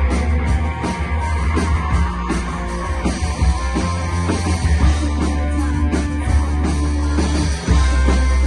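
Rock band playing live, with guitar and drum kit over a strong low end; the sound dips briefly near the end.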